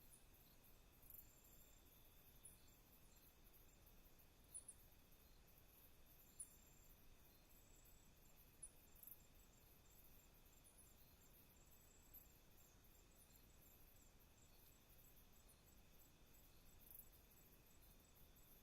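Faint night insect chorus of crickets and other insects: steady high chirring with a train of short high chirps over it and a few brief sharp chirps scattered through.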